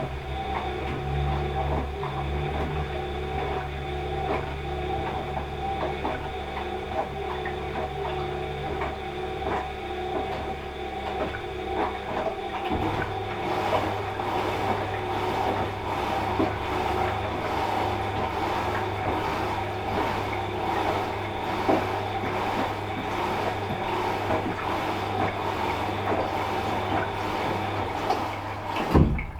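Washing machine running, its drum turning with a steady motor hum and a regular repeating swish-and-click rhythm. About halfway the low hum shifts up in pitch, and near the end a sharp knock comes and the running drops off suddenly.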